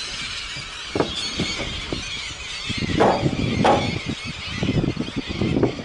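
A large flock of gulls calling continuously, with several louder single cries standing out, over a low rumbling noise.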